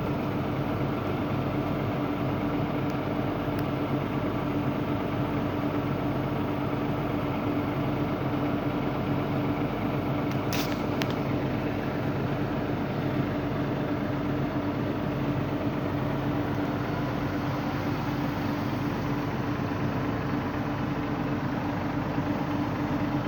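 Excavator's diesel engine running steadily with no breaker blows, with a single sharp click about ten seconds in.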